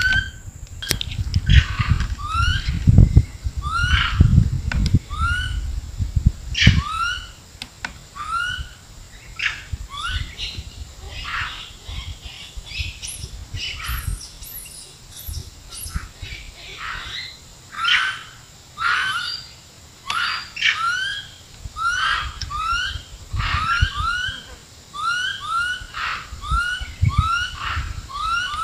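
An animal calling over and over in short rising chirps, about one or two a second, with a steady thin high-pitched drone behind. Low rumbling handling noise from moving the scoped rifle comes in the first seven seconds and briefly near the end.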